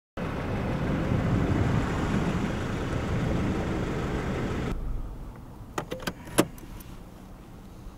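Car on the road: a steady rush of tyre and engine noise. It cuts off suddenly for quieter cabin rumble, with a handful of sharp clicks about six seconds in.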